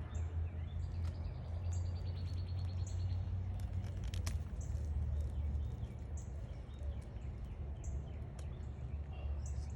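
Birds chirping over a steady low rumble: a quick run of high ticking notes, slowing slightly, about a second in, and short high chirps repeating every second or so. A single sharp click near the middle.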